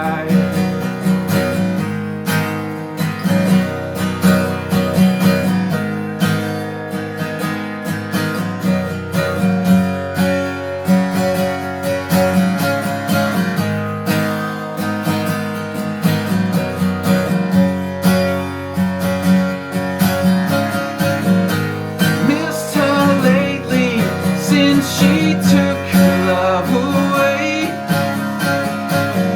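Acoustic guitar strummed steadily through an instrumental passage of a song, with no singing.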